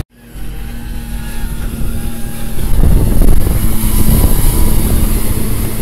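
Motorboat and jet ski engines running at speed with a steady drone, over the rush of water churning in their wakes.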